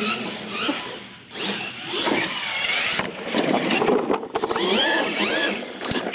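Radio-controlled monster truck motors whining, rising and falling in pitch with the throttle as the trucks drive on a concrete floor. A quick clatter of knocks comes about four seconds in.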